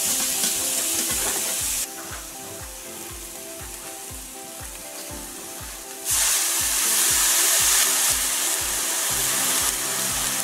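Veal roast and onions sizzling as they sear in a hot frying pan. About six seconds in, balsamic vinegar and water poured into the pan to deglaze it set off a sudden, louder sizzle. Background music with a steady beat plays underneath.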